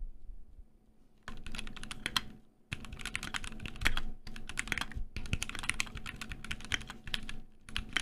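Fast typing on a Keychron Q5 mechanical keyboard with an aluminium case, close-miked, with the microphone right over the keys: rapid strings of keystrokes. The typing starts a little over a second in, pauses briefly once or twice, and breaks off shortly before the end.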